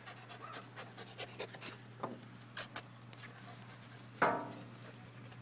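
A dog panting close up, with many short faint rustles and one short, louder sound about four seconds in.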